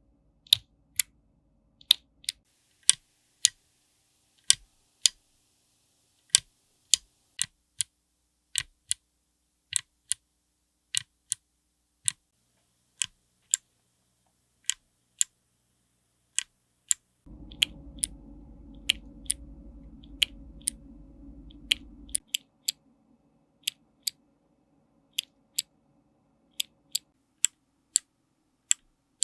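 Clicky mechanical keyboard switches pressed one key at a time, with a sharp click about once or twice a second at an uneven pace. A low steady hum sounds under the clicks for about five seconds past the middle.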